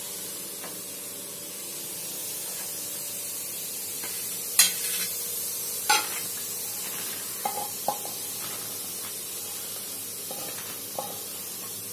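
Fried potato cubes sizzling lightly on a dosa tawa as a steel spatula scrapes them off the pan. Sharp scrapes and taps of the spatula on the pan come about four and a half and six seconds in, with lighter ones after.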